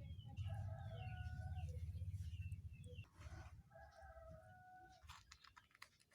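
Chickens clucking with a drawn-out rooster-like call twice, over a low rumble that drops away about three seconds in; a few short clicks near the end.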